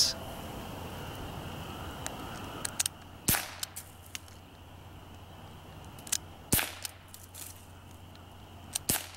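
Crosman PFM16 CO2-powered BB pistol firing three shots, sharp pops about three seconds apart, with a few fainter clicks in between.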